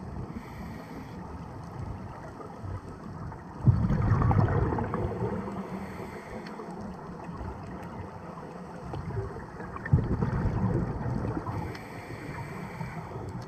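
Scuba regulator breathing heard underwater through a camera housing. Two bursts of exhaled bubbles, one about four seconds in and one about ten seconds in, each fading over a couple of seconds, with a faint hiss of inhaling near the start and near the end.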